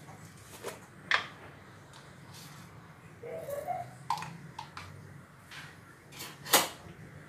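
Scattered light clicks and taps of kitchenware on a ceramic plate, with two sharper taps about a second in and near the end, over a low steady hum.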